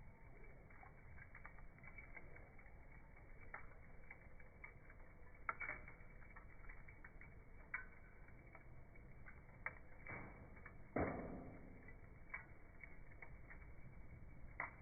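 Charcoal fire crackling faintly, with scattered ticks and sharp snaps; the loudest crack comes about eleven seconds in and trails off briefly.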